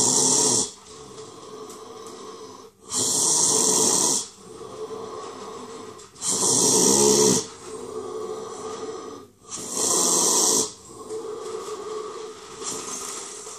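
Heavy, gasping breaths, each loud and rasping, lasting about a second and coming roughly every three seconds, with fainter breathing between them. The last breath, near the end, is weaker.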